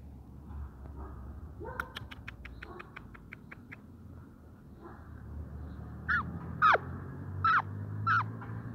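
Puppies yelping: four short, high yelps in the second half, each falling sharply in pitch. Earlier a quick run of about ten ticks is heard.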